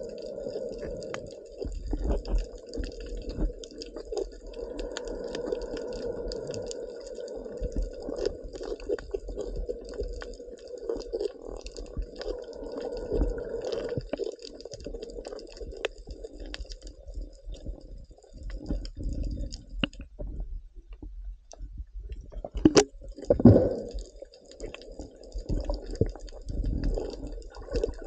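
Muffled underwater sound from a camera held below the surface while snorkeling: water moving around it, with many scattered clicks and crackles. It drops briefly about two-thirds through, then comes back with a few louder sloshing surges.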